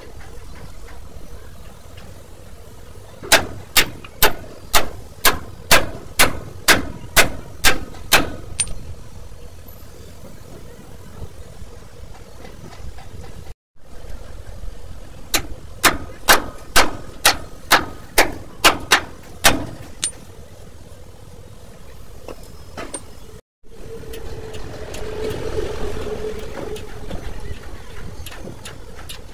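Two runs of sharp metal strikes, about two a second, a dozen in the first run and about ten in the second: hammer blows on the steel of a truck's leaf-spring suspension, over a steady low engine hum. A louder rushing hum swells in the last few seconds.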